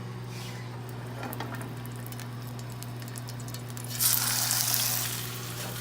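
Breaded chicken sizzling as it pan-fries: a steady sizzle over a low hum that swells louder for about a second near the end.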